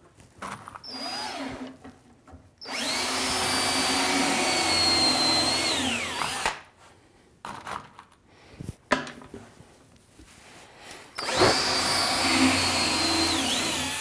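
Cordless drill working into the wood of a tool chest's skirt in two runs, one of about four seconds and another of about three near the end, its motor whine dropping as the first run stops. A brief quieter spin comes about a second in, and a few sharp clicks fall between the runs.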